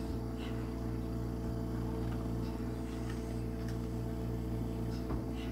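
A steady electrical hum with several even overtones and a slight pulsing in its low note, with a few faint clicks over it.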